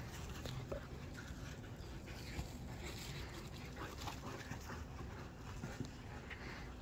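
A dog panting during rough play, with scattered light scuffs and taps throughout.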